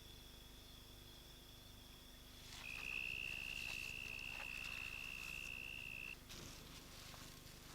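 Insects trilling in a steady high, thin tone, with a louder trill that starts about two and a half seconds in and stops about six seconds in over a fainter one, and a few faint ticks.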